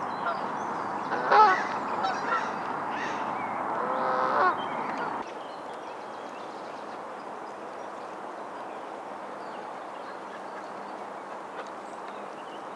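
Geese honking: a few short calls, then a longer call about four seconds in. About five seconds in the sound cuts abruptly to a quieter steady background hiss.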